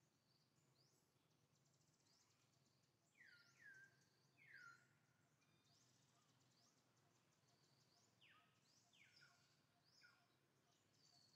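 Faint birds calling: short whistles that slide down in pitch, the loudest few about three to five seconds in and more near the end, over thin buzzy trills higher up.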